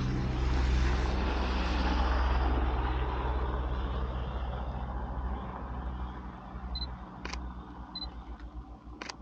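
A vehicle driving past: engine hum and tyre noise, loudest in the first three seconds, then fading as it moves away. Near the end come two short high beeps and a few sharp clicks.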